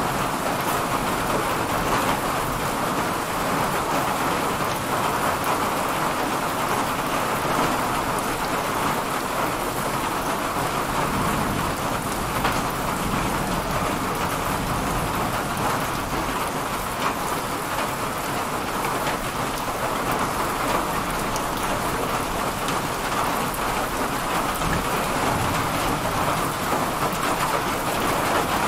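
Heavy, steady rain pouring down in a thunderstorm, with a low rumble of thunder underneath that swells at times.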